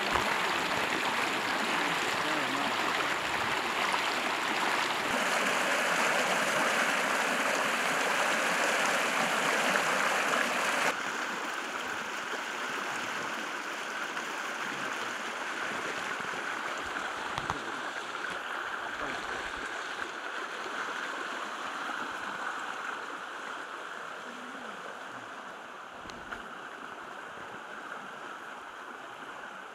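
Fast-flowing river rushing steadily. About eleven seconds in the rush drops suddenly to a quieter, more distant level that fades slowly, with a faint click or two near the end.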